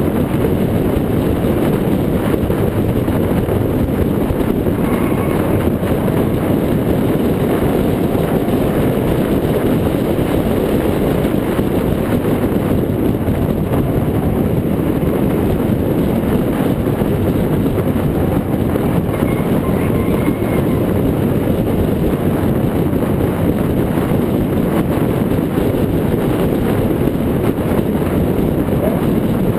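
Steady rush of wind and road noise picked up by a camera mounted on a car's front tow hook while the car drives at speed.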